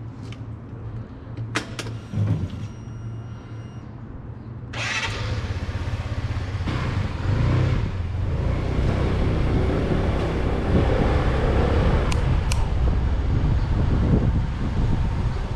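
125cc Motolux MTX 125 scooter engine running at idle, with a couple of sharp clicks about two seconds in. About five seconds in it pulls away and keeps running as the scooter rides along, with wind rushing over the microphone.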